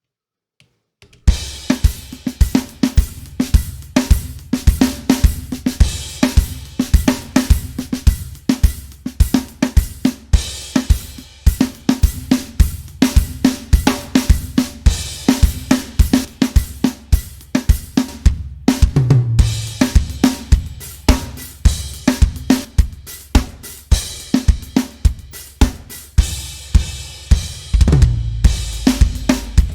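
Soloed drum kit from a mixed rock track playing back: kick, snare, hi-hats and cymbals in a steady beat, with a short break about eighteen seconds in. Parallel distortion and parallel compression are switched in partway through, making the snare and the whole kit much more powerful.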